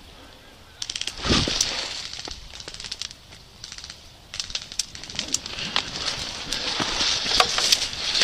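Airsoft gunfire: a quick burst of rapid sharp clicks about a second in with a low thump, then scattered shots and further short bursts near the end.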